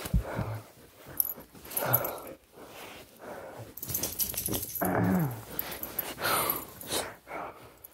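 Husky-type puppy huffing and grumbling in play, a series of short breathy bursts with one falling, pitched grumble about five seconds in.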